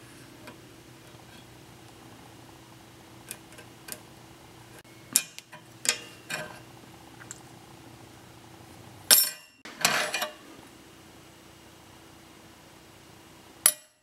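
Light metallic clinks and taps as a small stainless steel plate and knife parts are handled and set down on a workbench, with the loudest clatter about nine to ten seconds in, over a low steady hum.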